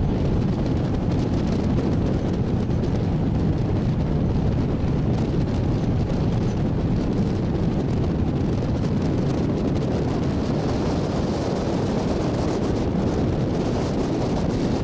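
Ferry boat underway: a steady low rumble of engine and rushing water with wind buffeting the microphone.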